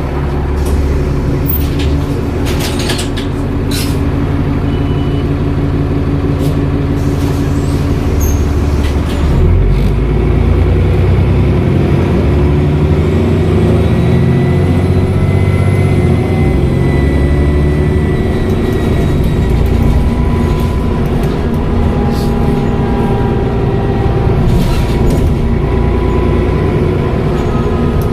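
Dennis Trident double-decker bus with a Voith automatic gearbox, its diesel engine running steadily. About ten seconds in, the engine note shifts and climbs as the bus picks up speed, and a faint high turbo whistle rises and falls. A few sharp clicks come a few seconds in.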